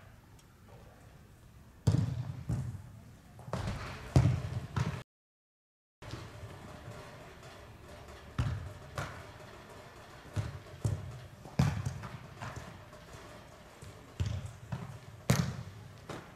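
Soccer balls being kicked and hitting the turf and the goalkeeper: a series of separate thuds, a few seconds apart. The sound cuts out completely for about a second around five seconds in.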